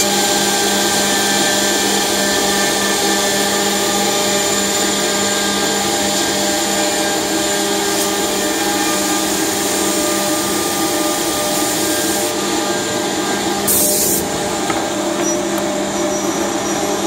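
OTT Tornado edgebanding machine running: its motors and trimming units give a steady multi-toned whine over a continuous hiss. A brief hiss cuts in about three seconds before the end.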